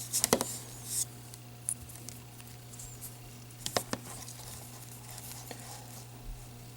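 A USB-to-Lightning charging cable being handled: a few light clicks and rustles in the first second and again about four seconds in, over a steady low hum.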